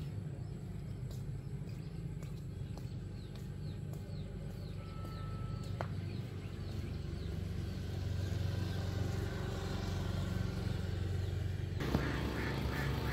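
Roadside ambience: a steady low engine hum, with a bird chirping over and over, about two short calls a second, through the first half. A broader noise grows louder after the middle.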